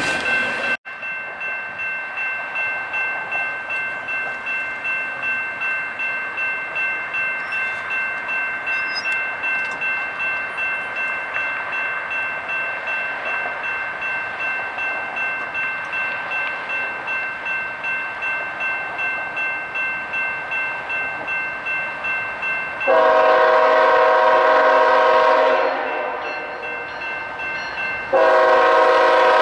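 A bell ringing steadily about twice a second, then a locomotive's air horn sounding a chord: one long blast of about three seconds, and a second blast starting near the end.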